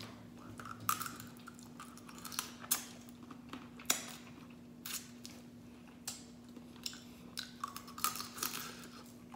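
Close-up eating sounds of a person chewing and sucking on mud crab in coconut sauce with rice, with irregular sharp clicks and smacks. A faint steady hum runs underneath.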